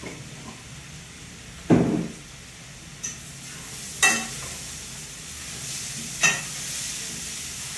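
Metal spoon stirring vegetables frying in oil in a stainless-steel kadai, with a light sizzle. About four sharp knocks of the spoon against the pan come through it, the loudest about two seconds in.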